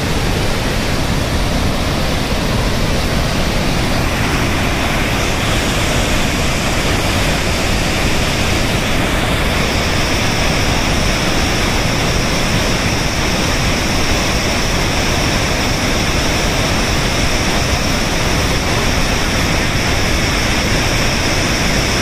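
Heavy river water rushing over a waterfall and through a narrow rock gorge and rapids: a loud, steady, unbroken roar. About nine seconds in, a steady higher hiss grows stronger within it.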